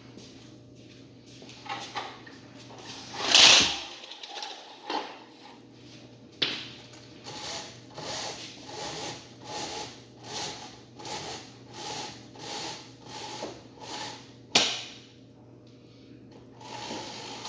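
Blackout roller shade being lowered by hand-over-hand pulls on its side control chain: about ten even pulls, roughly one every 0.7 seconds, each a short noisy stroke. A sharp knock follows near the end, and there is a louder burst of handling noise about three and a half seconds in.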